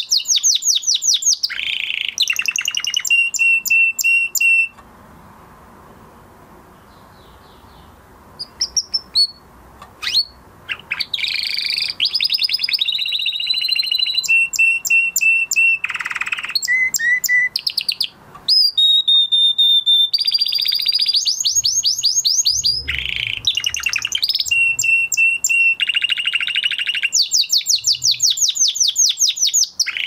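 Spanish Timbrado canary singing: phrases of fast trills alternating with steady held notes, broken by a pause of a few seconds about five seconds in before the song resumes.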